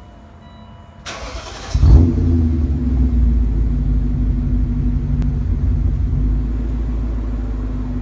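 BMW E39 M5's S62 V8 engine starting: the starter cranks for under a second, the engine catches with a loud rev flare about two seconds in, then settles into a steady idle.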